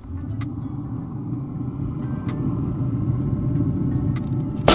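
A steady low rumble with a few faint clicks, ending in one sharp, loud knock.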